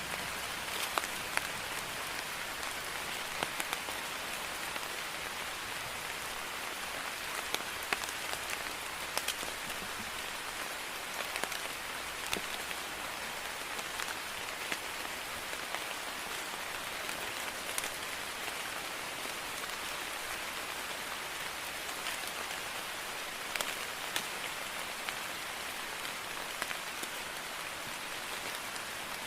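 Steady rain falling on a surface, an even hiss with scattered sharper drop hits.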